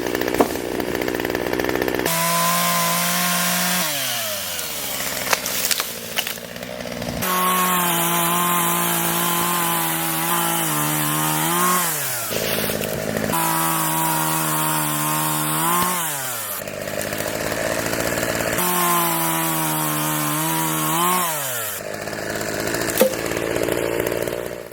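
Two-stroke chainsaw cutting wood at full throttle in a series of short clips that change abruptly. Its pitch rises as each cut finishes and the load comes off, and falls as the throttle is let go.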